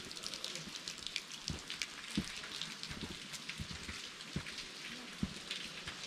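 Footsteps of someone walking on a rough trail, a low thud about every three-quarters of a second under a steady crackle of crunching ground litter.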